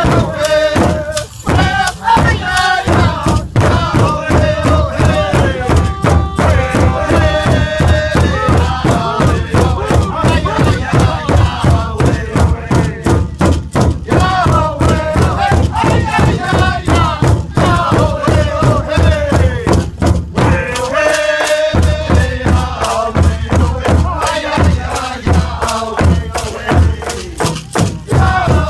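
A powwow drum group of men singing in unison while beating one large hide-headed powwow drum together in a steady, even beat. About two-thirds through, the drumbeat stops briefly while the singing carries on, then resumes.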